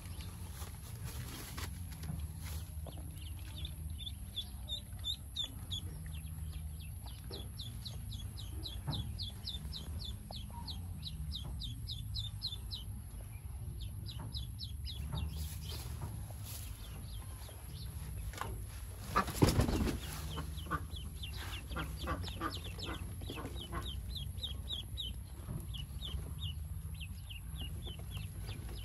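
Pekin ducklings peeping: two long runs of short, high peeps repeated several times a second, with a pause in the middle. A brief louder noise stands out about two-thirds of the way through.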